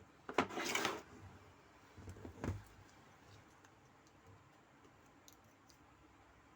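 Clicks and a short scrape of an LG top-load washing machine's control board housing being handled and taken apart, in two short bursts, the first just under a second in and the second about two and a half seconds in, then faint scattered ticks.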